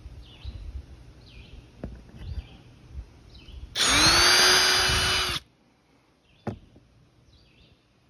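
Cordless drill spinning up and boring a small hole through the white plastic flange of an air-conditioner window adapter and a clear plastic sheet, its motor whine rising to a steady pitch for about a second and a half before stopping suddenly. A few light handling knocks come before it and a single click after.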